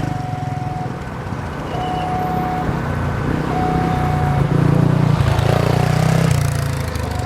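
A vehicle engine running, growing louder for a couple of seconds past the middle. Over it an electronic warning tone beeps on and off at a slow, even pace, each beep just under a second long.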